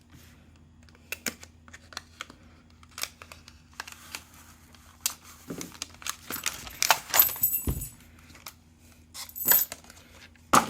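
A padlock being taken out of its packaging and handled: scattered clicks and rustles, with a few brief metallic clinks, the busiest stretch past the middle.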